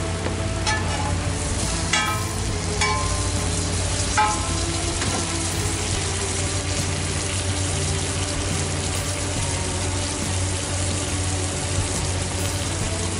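Buttered burger buns sizzling on a flat griddle, a steady frying hiss. In the first four seconds or so a few metal clinks and scrapes ring out as a steel spatula flips the buns against the griddle.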